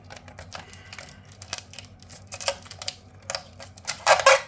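Hands working at the casing of a backup power supply, checking under its label for hidden screws: irregular small clicks and scratches, with a louder scrape lasting about half a second near the end.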